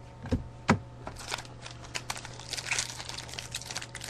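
Two light knocks, then the foil wrapper of a trading card pack crinkling and crackling as it is handled and torn open.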